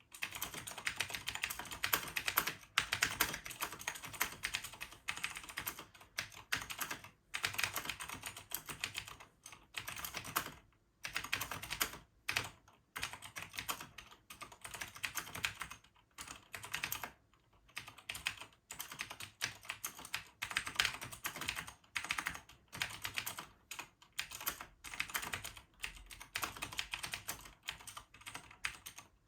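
Typing on an AUVA KB-2102/2 mechanical keyboard with Cherry MX Vintage White switches: fast runs of key clicks and keystrokes, broken by short pauses every second or two.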